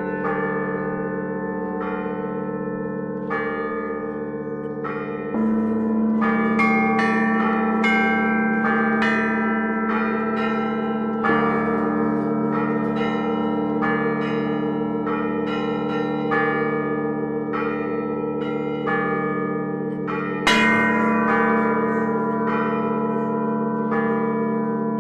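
Russian Orthodox church bells rung by hand: quick patterns on the small treble bells ring over the lasting hum of the larger bells. A deeper, heavier bell is struck about five seconds in, again around eleven seconds, and loudest near twenty seconds.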